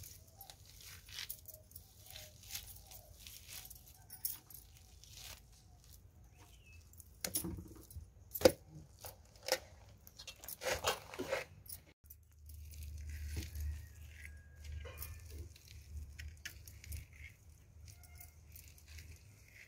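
Fibrous pulp of roasted palmyra palm fruits being torn and pulled apart by hand in a steel bowl, with soft tearing and rustling and a few sharp knocks, the loudest about eight seconds in.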